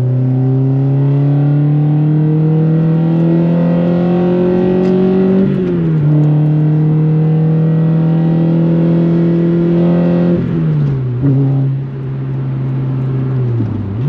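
Toyota Corolla TS engine and sport exhaust heard from inside the cabin, pulling through the gears. The note climbs slowly, drops at a gear change about five and a half seconds in, climbs again, and drops at further shifts after about ten seconds and near the end.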